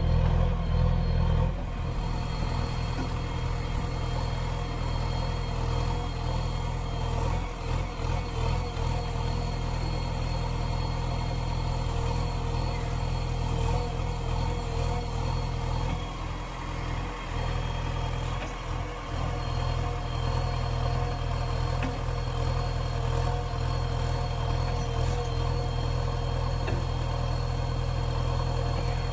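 The four-cylinder diesel engine of a JCB 3DX backhoe loader running steadily as the machine drives and works its front loader bucket, with a constant low drone and brief dips in level a few times.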